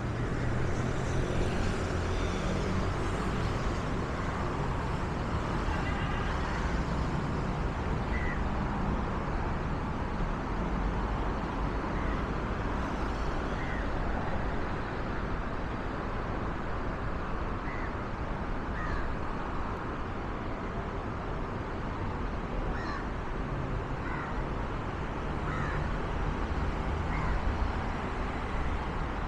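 Steady low rumble of city traffic, with a bird giving short calls every few seconds from about eight seconds in.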